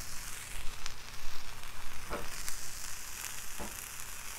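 Balls of ground beef sizzling in olive oil on a hot Blackstone flat-top steel griddle. The sizzle is a steady hiss with a few sharp pops of spitting fat.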